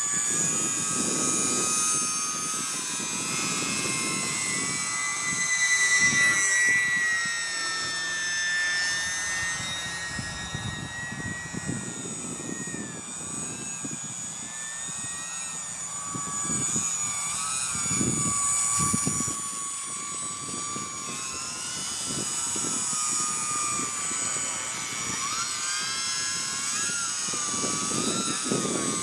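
Electric motors and propellers of several E-flite UMX Turbo Timber radio-controlled planes whining overhead, several pitches at once that slowly rise and fall as the planes pass and change throttle, over an irregular low rumble.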